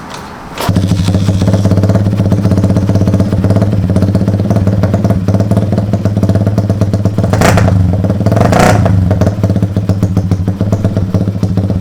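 Big-bore Honda Sonic single-cylinder motorcycle engine with a loud old-style exhaust, starting up about a second in and then idling with a rapid, even exhaust beat. Two brief louder bursts come near the middle.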